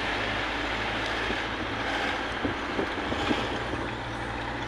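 Steady engine hum and road noise inside a moving vehicle, with wind rushing past an open window.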